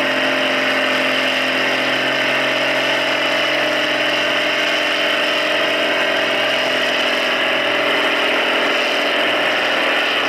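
Diesel farm tractor engine running under heavy load at a steady pitch while pulling a weight-transfer sled.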